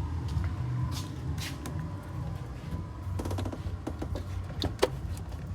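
Scattered light clicks and knocks of handling as an automotive relay is pushed into its socket in a plastic fuse box, over a steady low hum.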